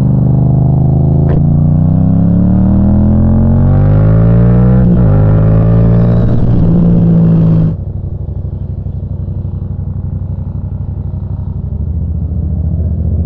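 Yamaha FZ-07's parallel-twin engine pulling under throttle, its pitch climbing steadily with a brief break about five seconds in. Nearly eight seconds in it drops off suddenly to a quieter, steady low running as the throttle closes.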